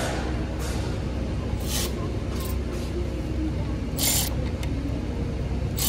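Steady low hum with several short hissing bursts, the longest about four seconds in.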